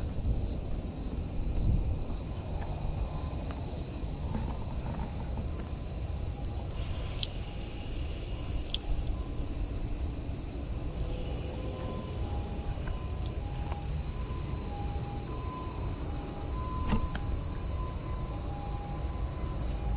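A steady, high-pitched chorus of insects, shifting in pitch about two seconds in and again near the end, over a constant low rumble. Faint short repeated peeps come in during the second half.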